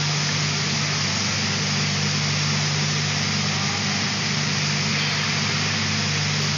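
Automatic steel-bar shot blasting line running: a steady machine drone with a low hum under an even hiss, unchanging throughout.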